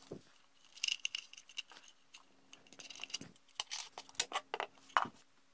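Hands handling a 3D-printed plastic boat hull: scattered light clicks, taps and brief scratchy rubs of fingers and plastic, over a faint steady hum.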